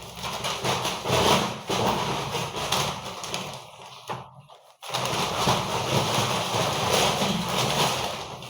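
Plastic shopping bag rustling and crinkling as groceries are taken out of it, in two stretches broken by a brief silence about halfway.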